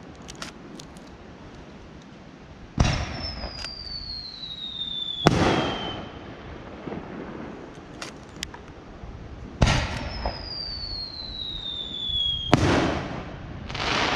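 Aerial fireworks shells: twice a shell goes up with a bang and a long whistle that falls in pitch, followed about three seconds later by a loud bang as it bursts. Faint crackles come early on, and another burst swells up near the end.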